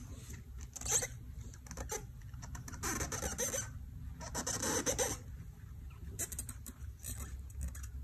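A paper towel is rubbed and pushed along a silicone mat and the rim of a wooden embroidery hoop, wiping away stray sand in several short strokes, with a few light ticks near the end.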